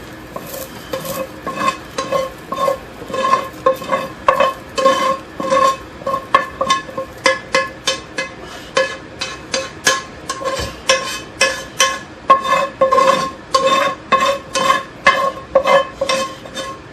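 Metal spoon scraping out and knocking against a metal pan, a quick train of clanks about two to three a second, each with a short ring.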